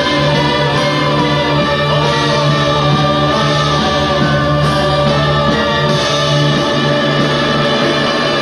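Music with choral voices singing long held chords.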